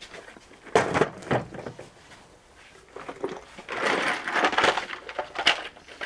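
Handling noise of a plastic storage case full of metal RF connectors being put down on a wooden workbench and opened: two sharp knocks about a second in, then a longer clatter and a click near the end.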